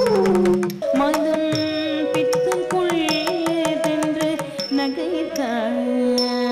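Carnatic music accompanying Bharatanatyam dance. A melody bends and slides through ornamented notes over regular percussion strikes. A steady low drone note drops out about a second in.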